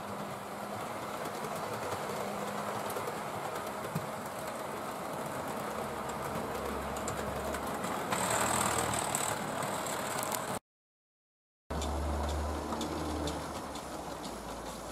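Analogue-controlled model trains running round the layout: electric motor hum and wheels rattling over the track joints. The sound cuts out for about a second a little past the middle.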